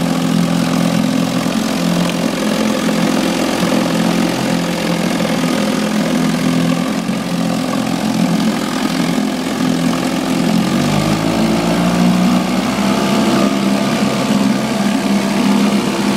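A 1965 Evinrude Ducktwin 3 HP two-cylinder two-stroke outboard motor running steadily with its lower unit in a test barrel of water. About eleven seconds in, its engine speed changes and the note rises slightly.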